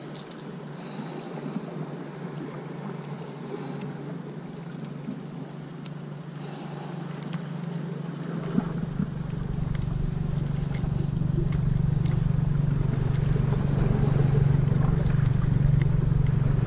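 A motor engine running steadily, a low hum that grows louder through the second half.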